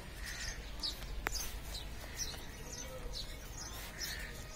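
Small birds chirping, short high chirps repeating over and over, over a steady low outdoor rumble. One sharp click comes a little over a second in.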